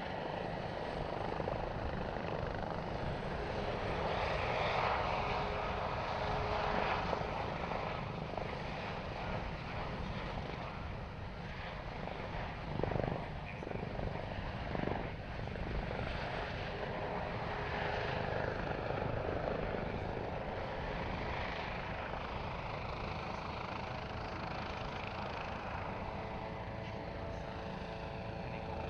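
Airbus Helicopters H145M helicopter flying a display, its main rotor and twin Arriel 2E turboshaft engines running steadily, the sound swelling and fading as it manoeuvres.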